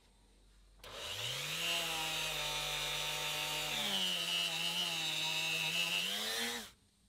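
Handheld rotary tool with a felt polishing bob spinning up about a second in and running at a steady whine, with a hiss from the bob buffing the steel plier jaws. Its pitch rises briefly about four seconds in, and it switches off suddenly near the end.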